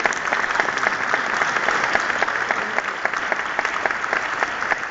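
Audience applauding, with individual claps standing out in a dense, steady patter.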